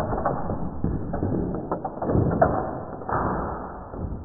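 Muffled mechanical clatter: a quick run of clicks and knocks over a low rumble, loudest about two seconds in and dying away near the end.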